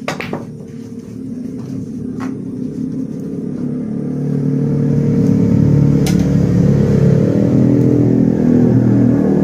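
An engine running close by, growing louder over the first five seconds and then holding steady. A few sharp clicks of billiard balls sound over it.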